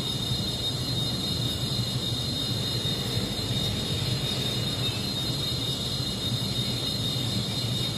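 Recorded gas-turbine idle played by the DCC sound decoder of an N-scale United Aircraft gas-turbine train model, heard through the model's small speaker: a steady high whine over a low hum, unchanging throughout.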